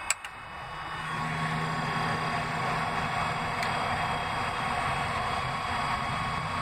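Click of the flap switch, then the Cessna 150K's electric wing-flap motor running steadily as the flaps extend.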